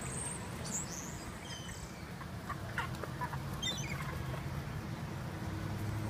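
A flock of gulls squabbling over scattered French fries: a few short, faint calls and chirps, clustered around the middle, over a steady low hum.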